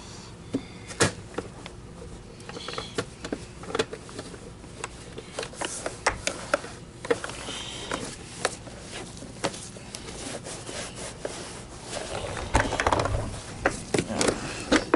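Microfiber cloth wiping and buffing the plastic body of a Miele canister vacuum, with scattered sharp clicks and knocks as the housing is handled. There is a louder cluster of knocks near the end.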